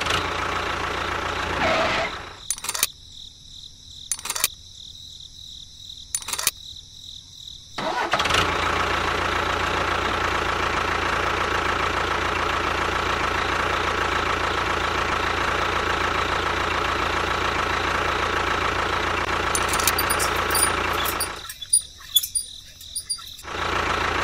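Engine running steadily. It cuts out after about two seconds, leaving a few sharp clicks, then starts again at about eight seconds and runs evenly until it stops near the end.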